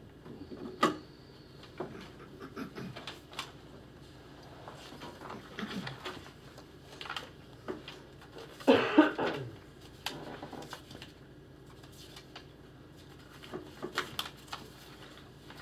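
Loose sheets of paper rustling and being shuffled, with scattered small clicks and a cough about nine seconds in.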